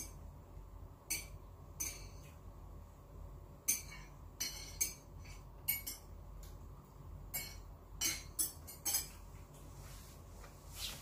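Chopsticks and eating utensils clinking against bowls and plates during a meal of noodles: about a dozen irregular sharp taps.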